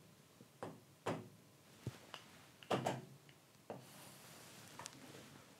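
Fingertips tapping a large touchscreen display: about seven soft, separate taps and knocks spread over a few seconds.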